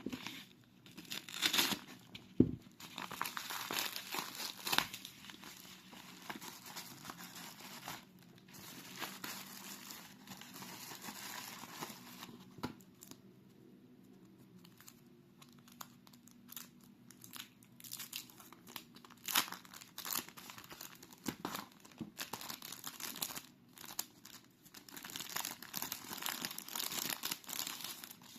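Parcel packaging being unwrapped by hand: wrapping crinkling and tearing in irregular bursts, with a sharp click about two and a half seconds in.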